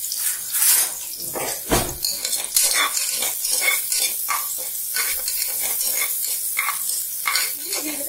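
Metal ladle scraping and clinking against the bottom of an aluminium pressure cooker while chopped onions and cumin seeds sizzle in hot ghee. One louder knock comes about two seconds in.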